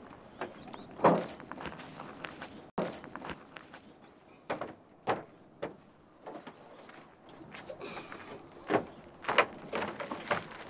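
An estate car's rear tailgate is opened with a thump about a second in, followed by scattered knocks and thuds as someone climbs into the cargo area and handles a cardboard box.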